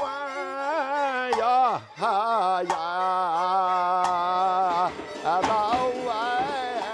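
A man singing long, bending, held notes in the chanted operatic style of Tengchong shadow-puppet opera. Sharp percussion clicks fall between phrases, roughly every second and a half.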